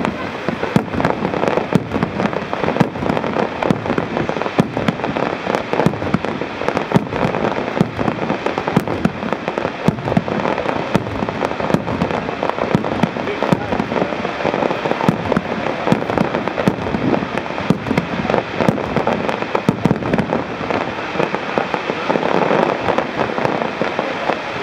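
Fireworks display: a dense, unbroken barrage of aerial shell bursts, with sharp bangs and crackling coming many times a second.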